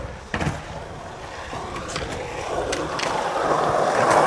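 Skateboard wheels rolling on concrete, growing steadily louder as the board approaches, with a sharp knock about half a second in.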